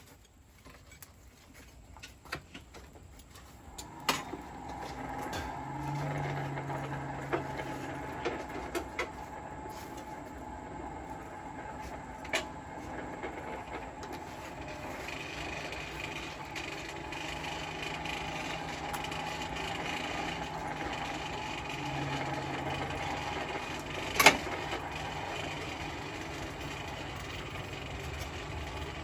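Steady mechanical hum with a rush of air, like a coal forge's blower running, starting a few seconds in. A few light clicks and one sharp clack about 24 seconds in.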